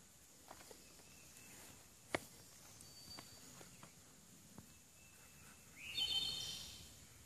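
Sneakers stepping along the bark of a fallen log, a few faint, sharp taps, against a quiet woodland background. About six seconds in, a bird gives a short call that sweeps upward and then holds, the loudest sound here.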